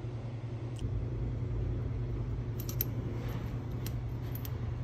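A few light clicks of small ignition parts being handled on a workbench, over a steady low hum.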